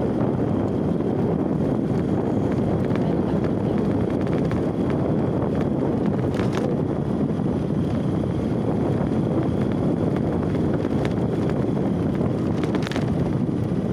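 Steady wind rush buffeting a phone microphone while riding on a motorbike along a road.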